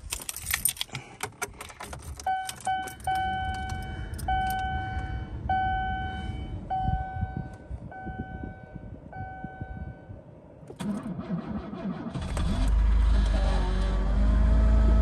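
Oldsmobile Champ car cold-started at −23 °C after sitting a week. Keys jangle and the ignition is worked, a dash warning chime repeats about once a second while the starter cranks, and the engine catches about twelve seconds in and keeps running.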